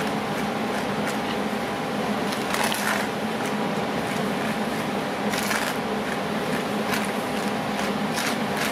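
Flat spatula spreading and scraping wet epoxy resin over a concrete floor, with a few scrapes standing out about a third and two thirds of the way through, over a steady machine hum.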